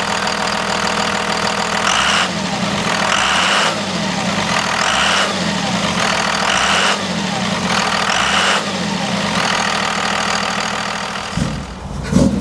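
Dodge Ram's Cummins turbodiesel idling, then blipped about five times roughly a second and a half apart, the pitch rising and falling with each rev before it settles back to idle.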